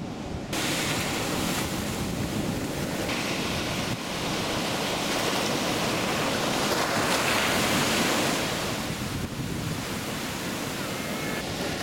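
Ocean surf breaking and washing up the sand at the shoreline, with wind on the microphone. The wash swells midway and eases off toward the end.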